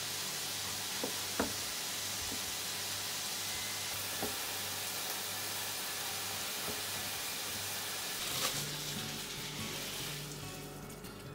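Sliced meat sizzling steadily in a frying pan, with a few light knife taps on a wooden cutting board as eggplant is sliced. The sizzle dies away near the end as the meat is tipped out of the pan.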